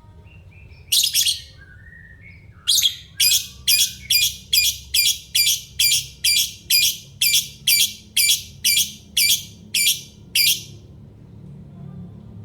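Lovebird calling: a few soft chirps, then a long run of loud, harsh, identical shrieks repeated about two to three times a second for some eight seconds before stopping, the rapid chattering call that keepers call 'ngekek'.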